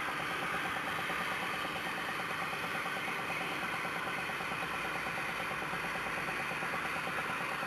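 Homemade oxyhydrogen electrolysis cell with double-helix stainless-steel electrodes fizzing steadily as gas streams off the plates, with its bubbler going in a fast, even pulse beneath the hiss.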